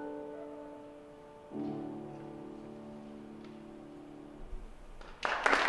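Grand piano playing the closing chords of a song's accompaniment: a chord struck about a second and a half in is held and left to fade. Applause breaks out near the end.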